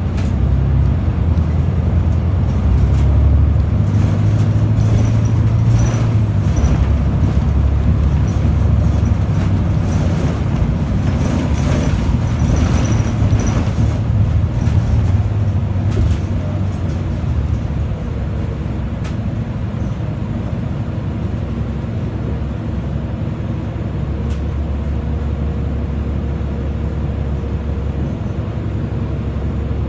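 Inside a New Flyer XD60 articulated diesel bus under way: steady engine and drivetrain drone with road noise. It grows quieter and steadier in the last third as the bus slows to a stop.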